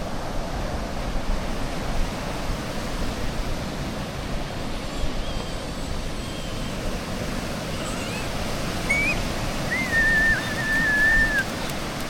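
Sea surf washing on the shore with a steady rush of noise. Near the end comes a thin, high, wavering whistle-like tone that lasts about two seconds.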